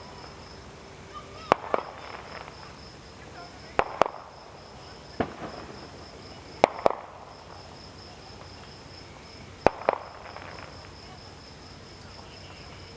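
Fireworks bursting: sharp bangs every two to three seconds, often a pair a fraction of a second apart, each with a short echo. Underneath, insects chirp in a steady rapid pulse.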